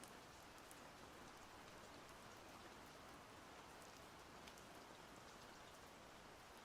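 Faint, steady splashing of water, with scattered small drips.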